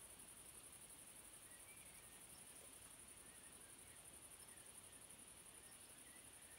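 Near silence of an evening garden, with a faint, steady, high chirring of crickets and a few faint, distant bird chirps.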